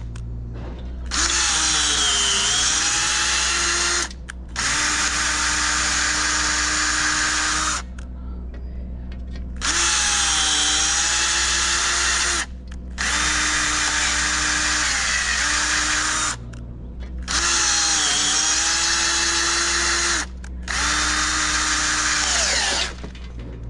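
Cordless drill driving a thread-cutting tap into drilled holes in aluminium extrusion. Its motor whines in repeated runs of a few seconds with short pauses between, and the pitch dips briefly at the start of several runs as the tap takes load.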